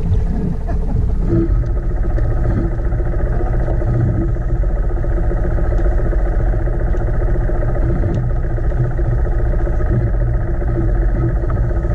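A boat's engine running at a steady speed, a constant low drone.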